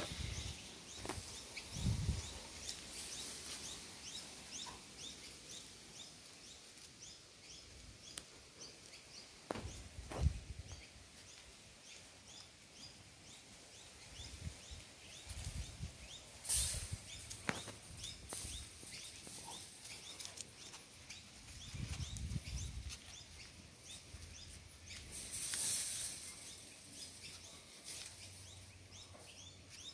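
Outdoor ambience of birds chirping steadily with short, rapid repeated calls, with occasional rustles and soft bumps close to the microphone.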